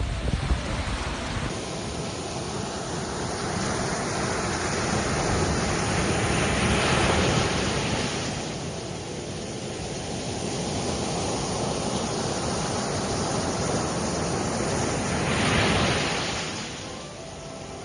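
Sea waves washing onto a shore in a steady rush, with two louder surges as waves break, one about halfway through and one near the end.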